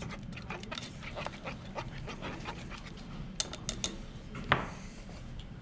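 A whisk stirring thick cheese sauce in a saucepan: a run of quick, soft swishing strokes, then a few scattered clicks, and a single louder knock about four and a half seconds in.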